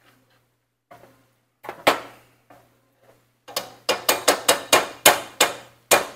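Metal potato masher pounding beans in a skillet, clacking against the pan bottom: a few separate knocks, then a quick run of about three a second through the second half.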